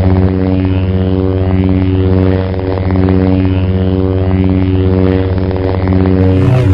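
Darth Maul's red lightsaber humming steadily after ignition: a low electric drone with a stack of overtones, wavering slightly in loudness.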